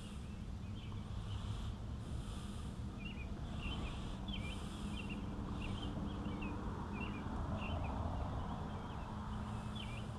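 Small birds chirping in short, repeated calls, over a steady low outdoor rumble.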